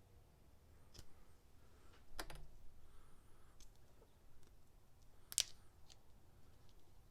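Scattered light clicks and taps of small metal hand tools being handled, the sharpest about five and a half seconds in.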